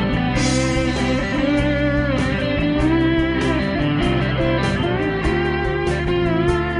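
Background music: guitar-led instrumental with a steady drum beat.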